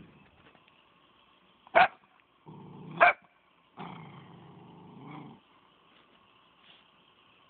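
Black-and-tan dog growling low and long, with two sharp barks about a second apart near the start, warning off a cat at the fence while guarding her food.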